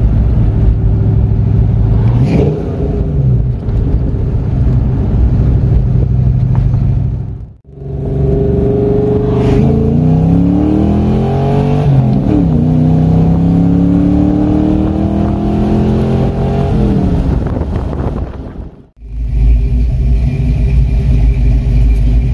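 Fox-body Ford Mustang's engine and exhaust heard from inside the cabin while driving. The engine note climbs under acceleration, drops sharply at a gear change and climbs again. In a short final stretch it runs steadily at a low pitch.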